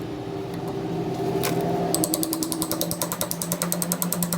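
A machine running with a steady hum, joined about halfway by a fast, even run of mechanical clicks.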